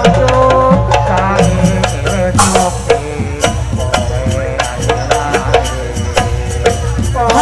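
Live jaranan accompaniment music: drums beat a quick, steady rhythm under a wavering melody line. The melody fades back through the middle and comes up strongly again near the end.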